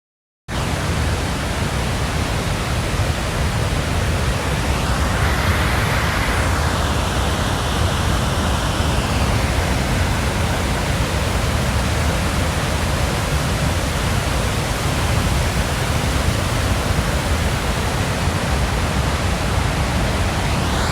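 Creek waterfall rushing: a loud, steady wash of falling water, starting right after a brief dropout to silence at the very start.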